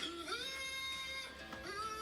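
Cowboy song playing: a voice singing long, sliding notes over acoustic guitar.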